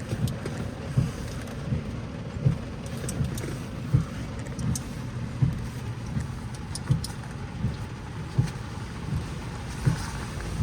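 Rain falling on a car, heard from inside, over a steady low rumble, with a short low thump recurring about every three quarters of a second.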